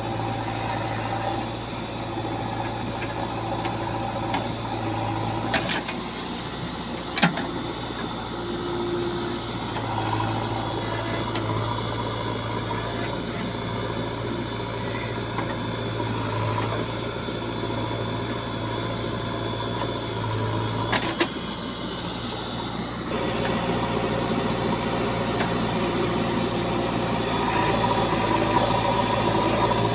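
JCB 3DX backhoe loader's diesel engine running steadily while loading mud, with a few sharp clanks. The engine grows louder and fuller about three-quarters of the way through.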